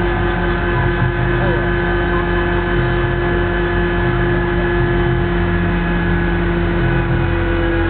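Aerial ladder fire truck's engine and hydraulics running steadily while the ladder with its basket is raised, a constant drone with a strong steady hum.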